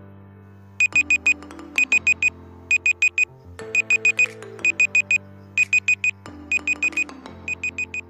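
Alarm-clock-style electronic beeping, four quick high beeps in a group repeated about once a second, in time with a countdown. Sustained synth chords play underneath.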